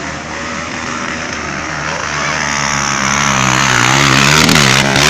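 Dirt bike engine running and getting steadily louder, its pitch wavering up and down with the throttle. It is loudest near the end.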